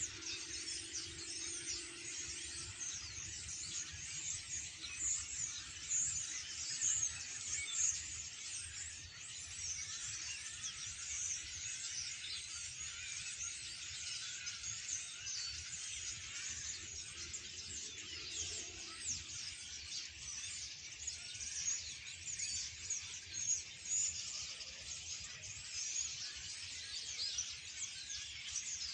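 A large flock of birds calling all at once: a dense, continuous chatter of many overlapping high chirps and squeaks.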